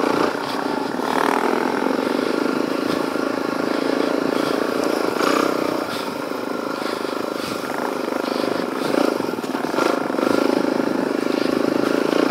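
Suzuki DR-Z400E dirt bike's single-cylinder four-stroke engine running under way on a trail, its note rising and falling a little as the throttle changes.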